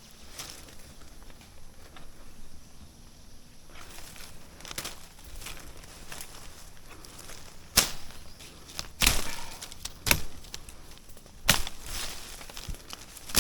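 Rustling, then from just past the middle a series of sharp knocks, about five, each a second or so apart.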